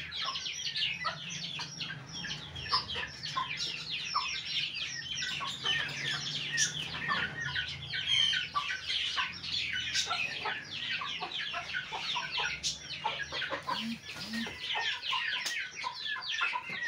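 A brood of young Aseel chicks peeping without pause: a dense stream of short, high, mostly falling peeps, with a low steady hum beneath.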